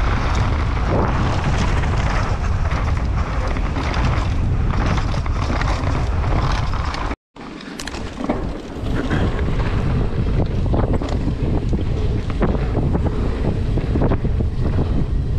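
Wind buffeting the camera microphone over the rumble of a mountain bike running down a dirt trail, with small knocks and rattles. The sound cuts out completely for a split second about seven seconds in.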